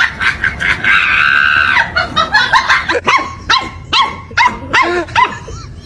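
A puppy barking at play in quick, high-pitched yips, about three a second, from about halfway in. It is preceded about a second in by a held high-pitched sound lasting about a second.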